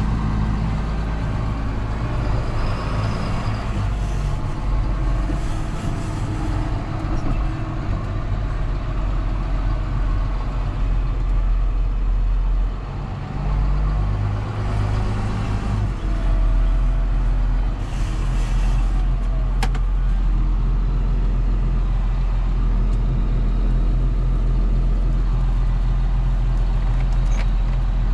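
John Deere 6930 tractor's six-cylinder diesel engine running steadily under load while pulling a Väderstad Cultus 350 cultivator. The engine sound dips briefly about halfway through, then runs a little louder, with a few sharp ticks later on.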